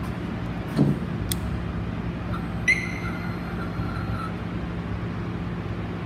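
A steady low hum. A knock comes about a second in, and a sharp metallic clink a little before the middle rings on briefly.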